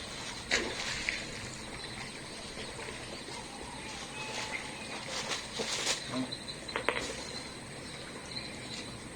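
Steady outdoor background noise with a few brief knocks and faint short, high chirps.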